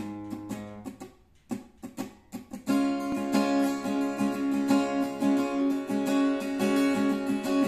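Thin-bodied cutaway acoustic-electric guitar of the APX type. A chord is struck at the start, followed by a few light separate strokes, and from about three seconds in it settles into steady rhythmic chord strumming.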